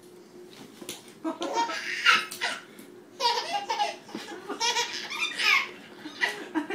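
Baby laughing in repeated bouts of belly laughs, starting about a second in.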